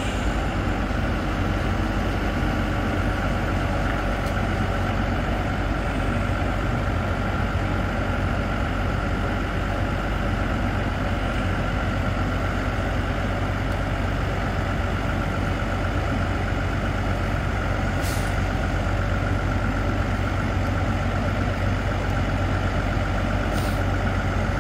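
Heavy diesel truck engine running steadily at a constant speed, with a deep even hum. Two brief faint ticks come through late on.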